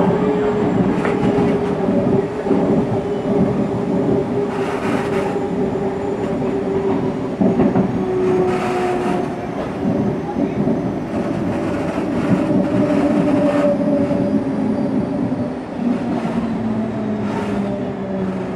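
CPTM Series 1700 electric commuter train running on the rails, with a steady pitched motor tone over a rumble and scattered clacks from the wheels. Near the end the tone falls in pitch as the train slows.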